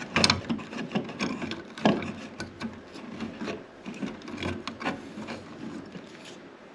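Irregular rubbing, scraping and clicking as stiff insulated electrical wires and plastic twist-on wire nuts are pushed around by hand inside a wall electrical box.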